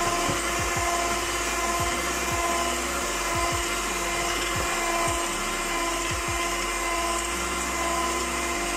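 Electric hand mixer with spiral dough hooks running steadily at one speed, a constant motor whine, kneading flour, milk and yeast into bread dough in a metal rice cooker pot. Irregular low knocks sound under the whine throughout.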